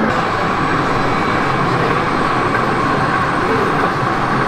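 Model train running on a layout: a steady rumble and whir over the even background hum of a busy exhibition hall.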